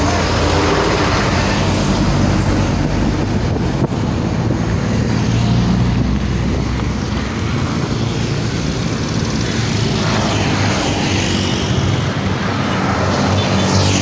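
Heavy road traffic: large bus and truck engines running loud and close, with continuous tyre and road noise.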